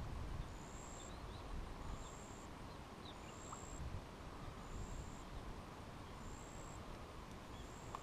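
Wind buffeting the microphone as a steady low rumble. Over it, a thin, high note repeats at even spacing, about every second and a quarter, with a few faint chirps between.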